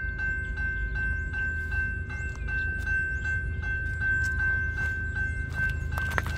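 Railroad grade-crossing warning bell ringing steadily at about three strikes a second, with a low rumble underneath, signalling an approaching train.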